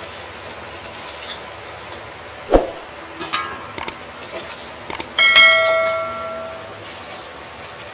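Metal utensils knocking and clicking against stainless steel cookware while fried sweet potato is scooped out of the wok with a wire skimmer. A few sharp knocks, then about five seconds in one loud strike that rings like a bell and fades over a second or so.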